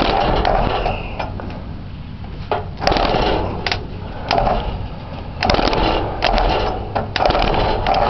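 An engine's starter motor being jumped with a heavy wire, cranking the engine in about half a dozen short, uneven bursts with sharp clicks between them. The battery is too weak to crank it well.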